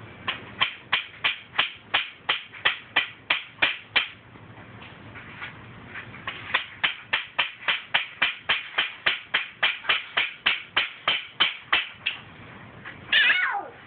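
Small hammer tapping quickly and evenly on a wooden board, about three to four strikes a second, in two runs with a short pause between. Near the end a child's voice gives a brief falling cry.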